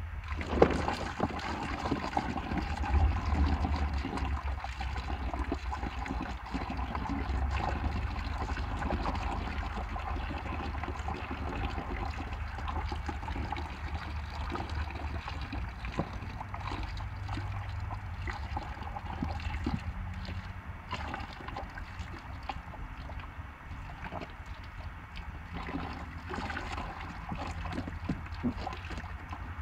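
Water falling in drops and splashing steadily into a shallow plastic paddling pool, a continuous trickling patter, with wind rumbling on the microphone.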